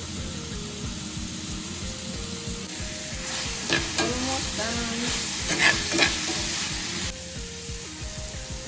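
Silkworms sizzling in oil in a cast-iron pan, with a metal ladle stirring and scraping against the pan for a few seconds in the middle, sharp clicks among the scrapes. Faint background music runs underneath.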